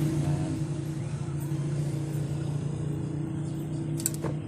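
A steady low machine hum, with a short sharp click about four seconds in.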